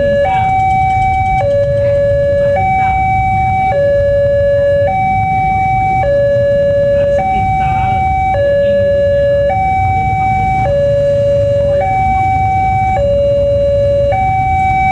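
Railway level-crossing warning siren sounding a steady two-tone hi-lo alternation, switching between a higher and a lower tone about every second, over a low rumble. It is the warning that a train is approaching and the crossing is closed.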